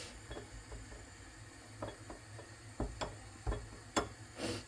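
Spoon clicking and scraping against a small bowl while mixing honey with ground spice powder: a scatter of light ticks, with a short hiss near the end.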